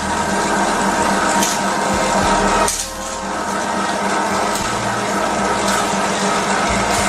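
Hydrodermabrasion facial machine running: its suction pump draws nutrient solution through the pen's tip, a steady watery hiss over a constant hum. The sound dips briefly about three seconds in.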